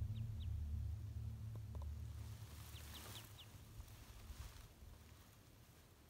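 Low background music fading out over the first few seconds. Faint, short, high bird chirps come twice at the start and four in quick succession about three seconds in.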